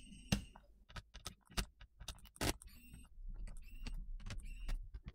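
A small electric precision screwdriver whirs briefly as it finishes backing out a heatsink screw. Then comes a run of light, irregular clicks and taps as the tool and loose screws are handled against the laptop's metal frame and heat pipe.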